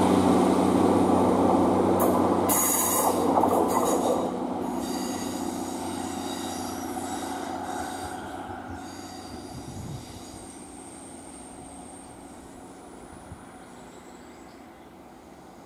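Class 153 single-car diesel multiple unit pulling away and receding, its underfloor Cummins diesel engine running, with high wheel-flange squeal on the curve from about two seconds in. The whole sound fades steadily as it moves off.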